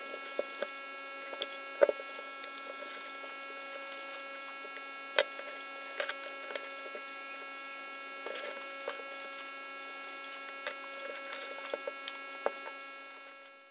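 Cardboard packaging being handled: scattered light clicks and taps as the box is opened and the test leads and pouch are taken out, the sharpest about two seconds and five seconds in. A steady electrical hum runs underneath.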